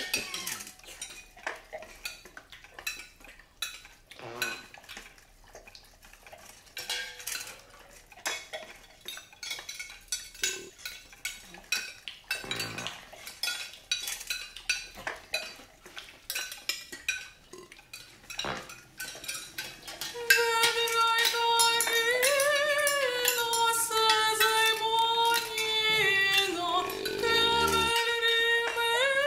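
A metal ladle and spoons clinking and scraping against a soup pot and china bowls in scattered knocks. About twenty seconds in, a woman starts singing, holding long notes that swell and bend in pitch.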